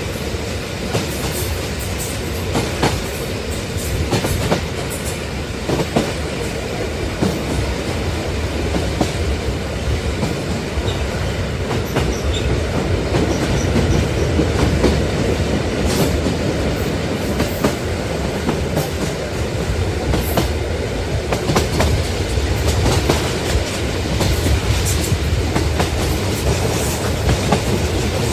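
Train running along the track: a steady rumble of the wheels and carriages, with irregular clacks as the wheels pass over rail joints.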